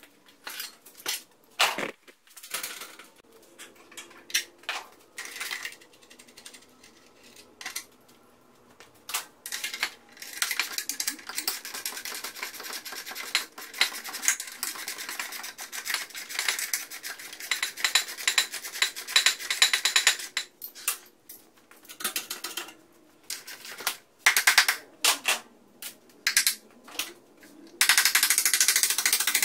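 Hand tools and metal hardware clinking and clicking in a workshop, with scattered single knocks. About ten seconds in, a long run of fast, dense clicking starts and lasts about ten seconds, and another dense run comes near the end.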